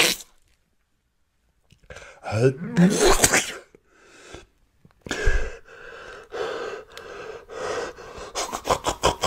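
A man's pained reaction to a foul-tasting mouthful: after a short silence, a gasping groan, then a long, raspy open-mouthed exhale and a quick run of short, panting breaths near the end.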